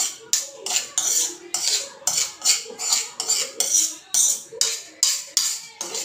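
A utensil scraping and stirring food around a frying pan in quick repeated strokes, about three a second.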